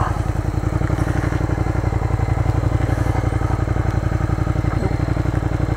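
2013 Suzuki Gladius 400's V-twin engine running steadily at an even, unchanging engine speed.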